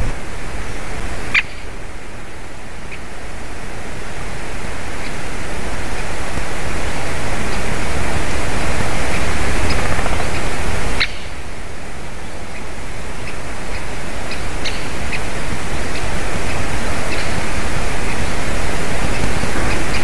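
Great spotted woodpeckers giving short, sharp 'kik' calls, scattered and faint, over a loud steady rushing hiss of wind and microphone noise. Two sudden clicks, about a second and a half in and about eleven seconds in, each mark a step in the hiss's level.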